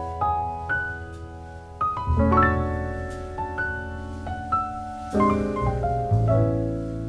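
Background piano music: slow single notes over held low chords.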